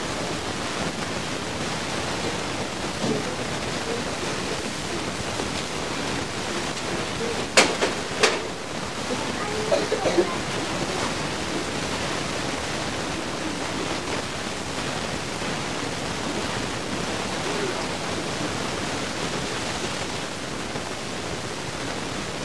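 Steady hiss of a home-video recording with faint murmuring from young children. Two sharp clicks sound about a third of the way in, half a second apart.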